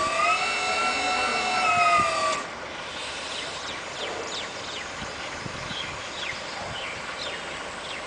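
An electric forklift's motor whining: a high whine rises in pitch, holds, sags slightly and cuts off about two and a half seconds in. A low steady background follows, with a few faint short high chirps.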